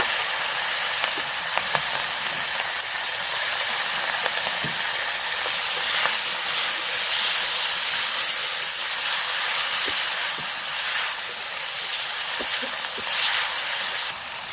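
Pork frying in oil in a pan: a steady sizzling hiss with small scattered pops, dropping somewhat just before the end.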